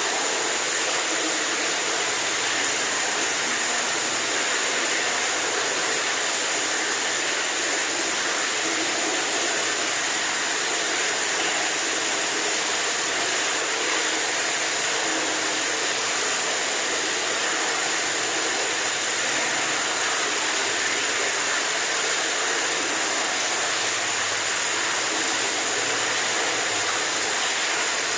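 Running water: a steady, unbroken rush with a bright hiss and little low end.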